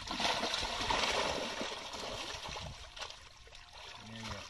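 Shallow pond water splashing and sloshing as a fishing net is hauled and shaken by hand, starting suddenly, loudest for the first couple of seconds, then easing off.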